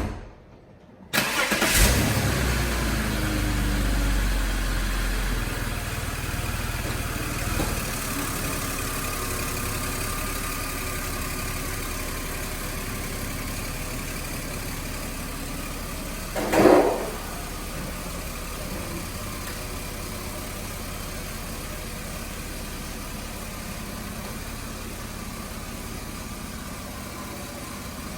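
BMW X5's engine cranking and catching about a second in, then idling fast and slowly settling lower. A single short thump comes about halfway through.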